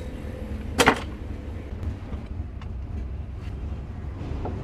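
A heavy ZF truck gearbox housing set down on a wooden pallet with one loud clunk about a second in, over a steady low rumble. A few light clicks follow near the end.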